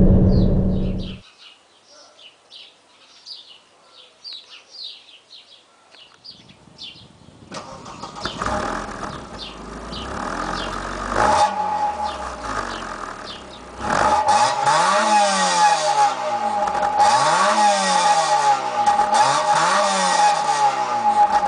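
Opel Calibra engine accelerating hard through the gears: its pitch climbs and then drops at each upshift, about four times, with a steady whine riding over it. Birds chirp for a few seconds beforehand while the car is faint.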